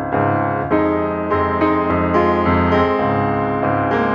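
Background piano music, a melody of notes changing every half second or so.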